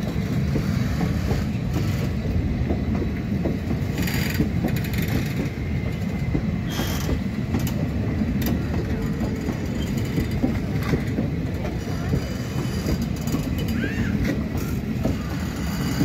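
Indian Railways express passenger coaches rolling slowly past on the rails as the train arrives: a steady rumble of wheels with irregular clacks over the rail joints and a few short high squeals.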